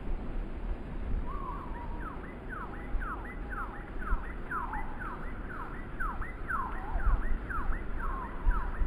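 Gusty wind buffeting the microphone and rushing through pine trees. Over it, a run of quick whistled sweeping notes, two or three a second, starts about a second in and goes on until near the end.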